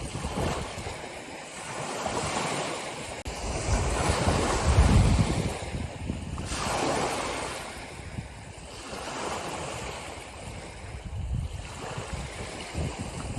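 Ocean surf: waves breaking and washing in, rising and falling in swells every few seconds, the biggest about four to five seconds in.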